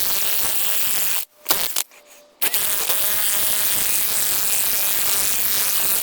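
Impact wrench hammering as it drives down the nut on a 1/2-inch concrete anchor bolt. A first run stops about a second in, a short burst follows, then a longer run of three and a half seconds cuts off suddenly at the end.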